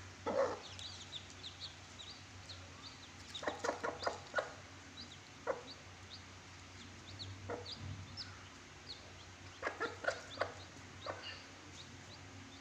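Chicks peeping, with many short, high cheeps throughout, and a hen clucking in short groups every few seconds.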